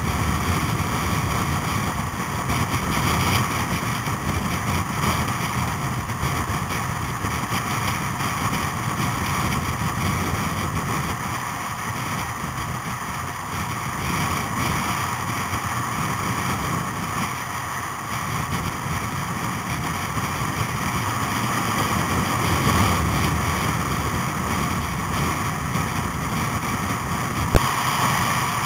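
Steady road and wind noise of a car driving at speed, heard from inside the car, with a single sharp click near the end.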